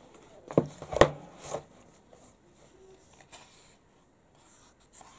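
Hands handling a magazine on a wooden desk: two knocks about half a second apart, a brief paper rub just after, then a few faint taps.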